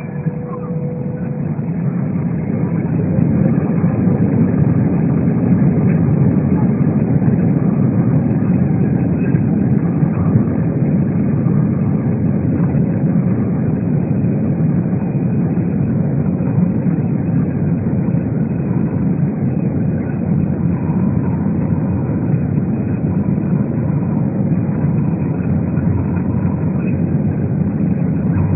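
Airbus A320 jet engine noise, a steady loud low rush that builds over the first few seconds and then holds.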